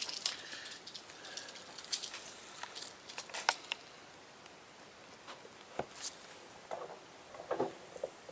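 Handling noise from gloved hands working over a snake carcass laid on paper: scattered small clicks and rustles, the sharpest click about three and a half seconds in.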